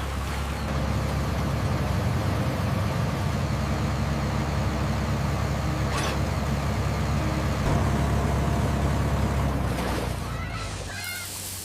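Tractor engine running with a steady low rumble, fading out about ten seconds in. A few short high chirps follow near the end.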